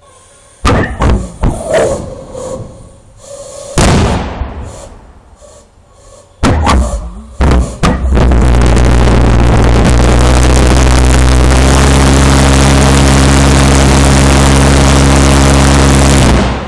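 Large homebuilt thermojet pulse jet being lit: a run of sharp bangs, another bang a few seconds later, then sputtering before it catches about eight seconds in. It then runs steadily with a really noisy, even drone and cuts off suddenly shortly before the end.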